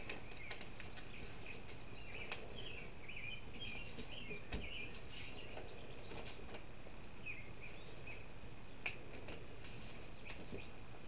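Small songbirds chirping and twittering in short phrases throughout, over a steady outdoor hush, with a few sharp taps as paper is folded and creased on a wooden tabletop.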